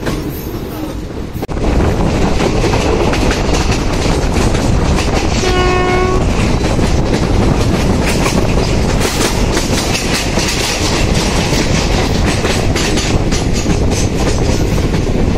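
Passenger train running on the track, heard from aboard: loud running noise with the wheels clattering over rail joints, rising sharply about a second and a half in. A short single-pitched horn blast sounds about six seconds in.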